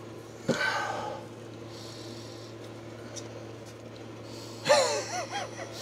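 A man gives a short, sharp snort-like sniff about half a second in. Near the end comes a brief wordless vocal sound with gliding pitch, over a steady low hum.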